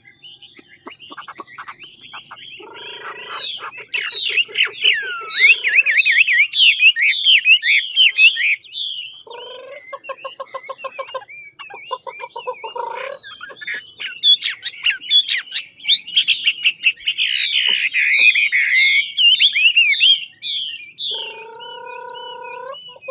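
Chinese hwamei singing: long runs of quick, sweeping whistled notes, loudest in two stretches, one a few seconds in and another past the middle, with lower buzzy phrases between them.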